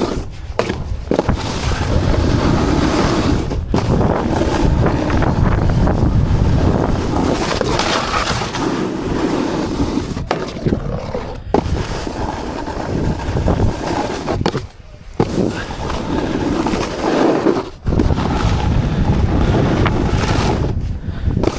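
Wind rushing over a point-of-view camera's microphone as a rider on a board moves at speed, with scraping from the board. The rush cuts out briefly four times.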